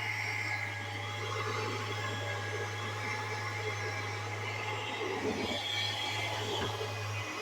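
National PG-201ADCH domestic well pump's electric motor running with a steady hum, a whir and a thin high whine. It is the abnormal noise the motor makes while running.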